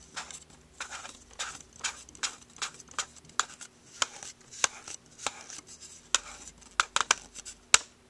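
Silencer being twisted onto an HFC Glock 17 spring airsoft pistol and the pistol handled: a run of irregular small hard clicks and taps, the sharpest one near the end.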